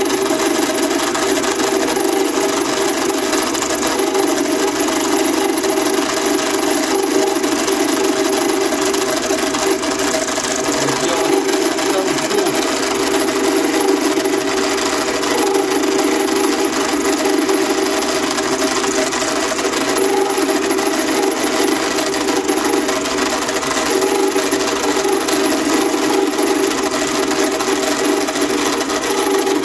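2M112 bench drill press running steadily, used as a milling machine: an end mill is cutting a slot in a metal workpiece clamped in a vise, taking more than a millimetre in one pass, with water poured on as coolant.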